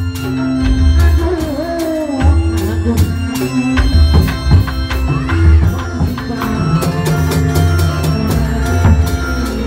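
Amplified reog Indramayu folk music through loudspeakers: drums playing a busy rhythm under held keyboard tones, with a voice singing a wavering line.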